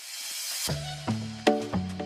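Background music: a rising hiss swell leads into an upbeat tune with a bass line and percussion hits, starting under a second in.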